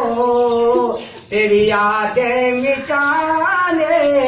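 A man singing a Hindi film song unaccompanied, holding long drawn-out notes with slow glides between them, with a short pause about a second in.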